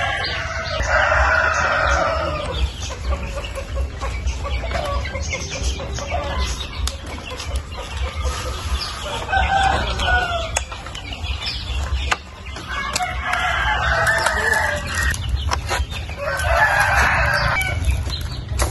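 Roosters crowing, about four separate crows of one to two seconds each, over a low steady rumble.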